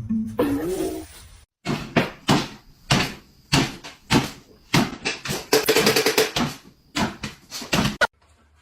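A series of sharp knocks or bangs, about one or two a second.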